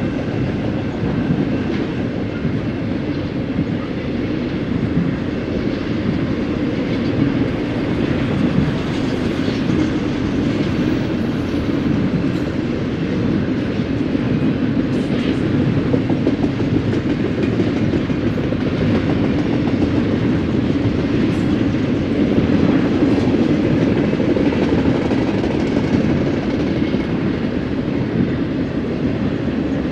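Double-stack intermodal well cars rolling past: a steady rumble of steel wheels on rail with occasional clacks from the wheels.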